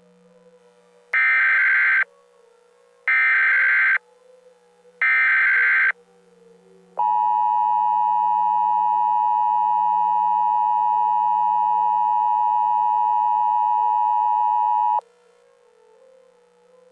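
Emergency Alert System tones: three short, evenly spaced bursts of the screeching digital SAME header, each about a second long, then the steady two-tone attention signal held for about eight seconds and cutting off suddenly. This sequence marks the start of an emergency alert broadcast.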